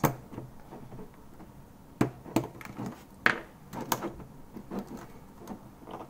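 A small metal pick clicking and scraping against a Keychron optical red switch's plastic housing and retaining tabs in the keyboard plate as the switch is pried out without a puller: scattered sharp ticks, the loudest a little after three seconds in.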